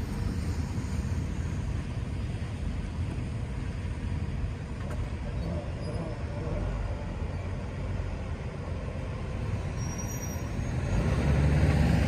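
Low, steady rumble of a freight train's tail end moving away from a grade crossing, then road traffic starting up as the gates lift; a truck's engine grows louder near the end.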